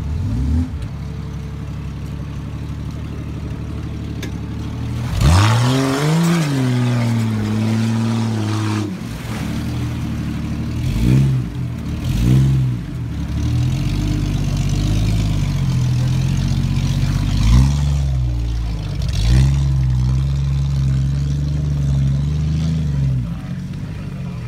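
Jeep Grand Cherokee's engine revving under load as it drives out of a deep mud pit. It runs low at first, is revved hard about five seconds in and held, then gives several sharp throttle blips between long runs at higher revs, easing off near the end.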